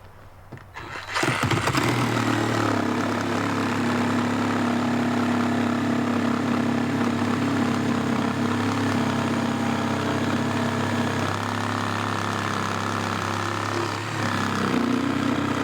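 Reciprocating saw (Sawzall) fitted with a Diablo 12-inch pruning blade, cutting through a 4x6 timber. Its motor starts about a second in and runs steadily under load through the cut.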